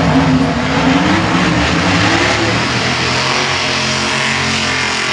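Street Outlaw drag cars doing burnouts: the engines held at high revs while the rear tyres spin, the pitch climbing over the first couple of seconds and then holding, loud throughout.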